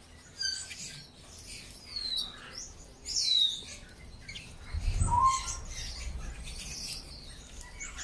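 Many canaries chirping and calling over one another, with short whistled notes and quick falling chirps. There is a low bump about five seconds in.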